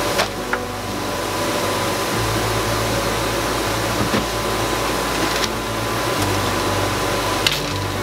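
Air conditioner running, a steady rush of fan noise over a low hum that shifts in level a few times. A few light clicks and knocks now and then.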